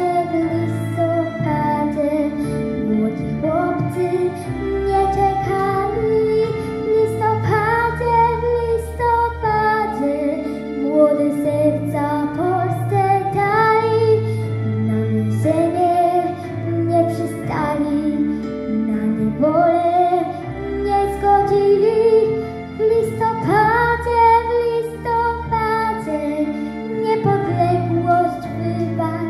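A young girl singing a Polish song into a handheld microphone over an instrumental backing track, her melody moving in phrases of held and gliding notes.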